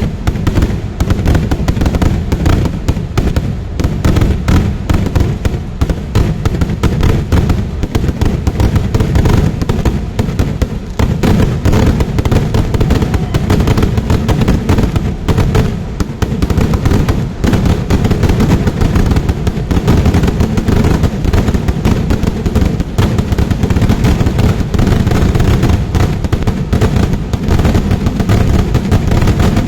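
Kerala vedikettu fireworks going off in a dense, unbroken barrage, many loud bangs a second with no pause between them.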